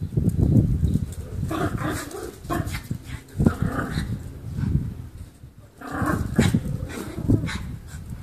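Small dogs growling in play, a low rumbling that comes and goes, broken by higher yaps about two seconds in and again around six seconds in.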